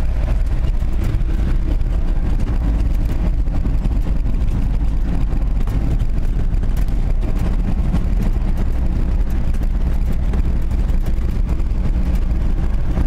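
Vehicle driving over a rough unpaved track: a steady low engine and tyre rumble, with many small knocks and rattles.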